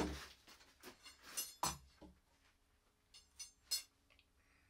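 Faint scattered clinks and knocks: a cordless drill set down on a wooden workbench, then a long steel construction screw being picked up and handled. About eight short ticks, the strongest near the start.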